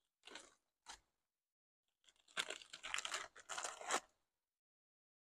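Plastic packaging crinkling and tearing as it is opened by hand: two brief rustles in the first second, then a busier run of crinkling lasting about a second and a half.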